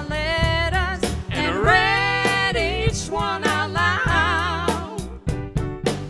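A singer holding long notes with wide vibrato over live band accompaniment with bass and a steady drum beat.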